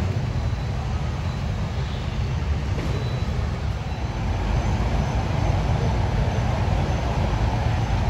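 Recorded rushing-waterfall sound played through the speakers of a large hall for a digital waterfall display: a steady low rumble with a hiss of falling water, growing fuller about halfway through.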